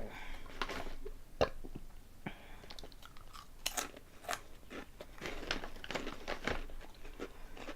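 A person chewing a crunchy honey-flavoured Korean potato snack, with irregular crisp crunches and bites.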